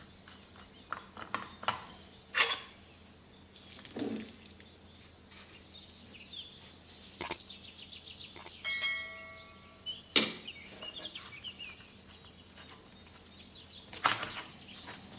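Metal spoon clinking and scraping against a dish while scooping thick ham-and-cheese filling, with knocks from a plastic empanada press being handled and snapped shut. Several sharp knocks stand out, loudest about two seconds in, around ten seconds in and near the end, with a short ringing clink just before nine seconds.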